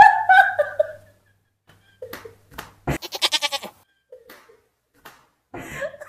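People laughing hard in bursts: a high-pitched, bleat-like laugh in the first second, a rapid stuttering burst about three seconds in, and laughter starting up again near the end, with short quiet gaps between.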